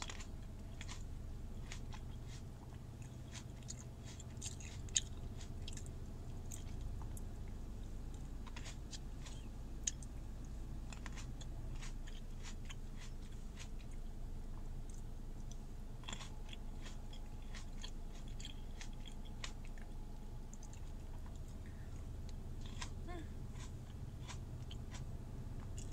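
A person chewing and biting into green grapes, with many small crisp clicks from the mouth. A steady low hum runs underneath.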